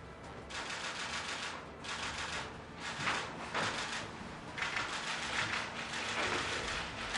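Many camera shutters firing together in rapid bursts, a dense clatter of clicks that starts about half a second in and comes in several waves.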